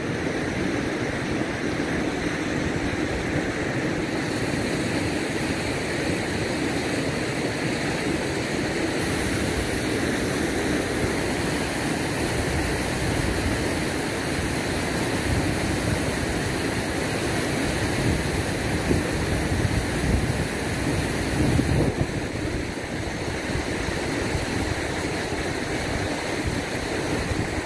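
Whitewater rapids rushing steadily over rocks and ledges, a continuous even roar of moving water.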